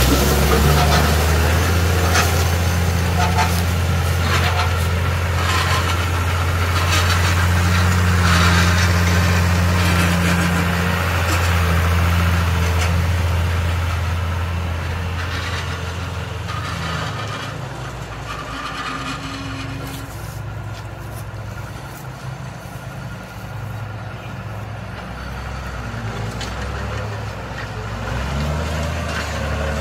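John Deere 3350 tractor's diesel engine running steadily under load as it pulls a disc harrow, with crackling and clicking from the discs cutting through soil and grass in the first half. The engine fades as the tractor moves away, then grows louder again near the end as it comes back.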